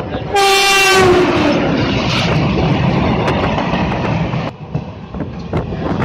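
A passing train's horn sounding once, falling in pitch as it goes by, followed by about three seconds of loud rushing noise from the train passing close alongside, which stops suddenly. Wheels click steadily over the rail joints beneath the carriage throughout, heard from inside a moving passenger carriage.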